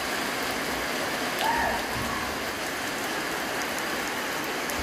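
Light rain falling steadily, an even hiss of drops on the ground and roofs. A brief higher tone rises and falls once about a second and a half in.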